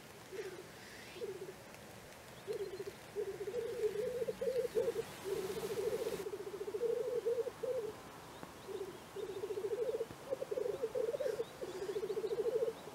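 Black grouse cocks rookooing in display on a lek: a low, dove-like bubbling coo in rapid pulsed phrases that rise and fall, with short gaps, nearly unbroken from about two and a half seconds in. A faint hissing call sounds near the start.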